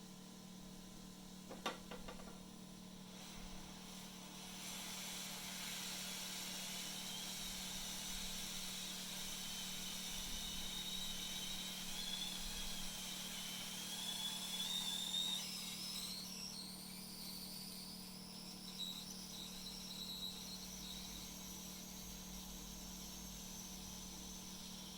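Steady airy hiss of a hot-air rework station blowing, as used for desoldering or soldering console ports, with a faint wavering high whine that slowly rises. A single click comes a couple of seconds in, and a low steady hum runs underneath.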